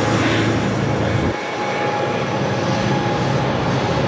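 Amtrak passenger train passing, its diesel locomotive pushing from the rear: a steady engine drone with a high whine. The low engine note drops out briefly just over a second in, then comes back as the locomotive nears.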